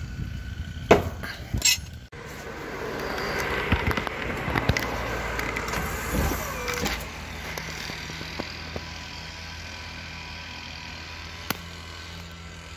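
A couple of sharp metallic clicks from a wrench on the tail lift's hydraulic cylinder rod. Then the steady hum of the Palfinger tail lift's electro-hydraulic pump running as the lift is worked from its control box, louder for a few seconds and then steady.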